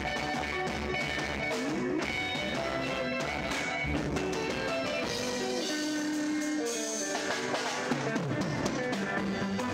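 Live Congolese rumba band playing: electric guitars over a drum kit and bass guitar. Just past the middle the bass and low drums drop away for a moment, leaving the guitars, then come back in.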